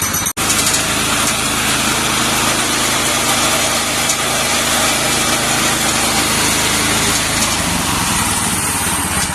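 Deutz lawnmower engine running steadily while warming up, cutting out for an instant about a third of a second in.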